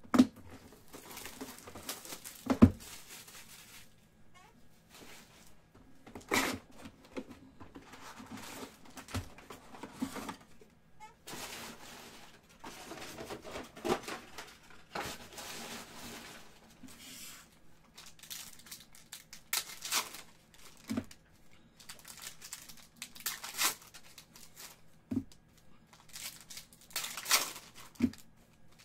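Foil trading-card pack wrappers (2019-20 Panini Certified basketball) being torn open and crinkled, with cards slid and shuffled between them in irregular bursts. A dull thump about two and a half seconds in is the loudest sound, with a few lighter knocks later.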